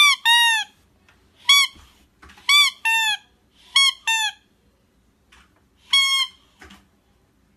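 Squeaker in a plush toy squeezed over and over: about eight short, high squeaks, several in quick pairs, each dropping in pitch at its end.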